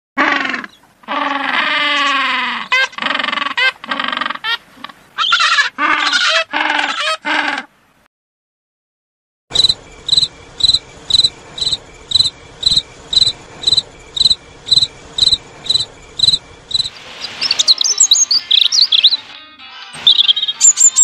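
Emperor penguins calling, a run of loud calls that waver in pitch, then a short silence; then crickets chirping steadily at nearly three chirps a second; near the end a European robin starts singing in quick high notes.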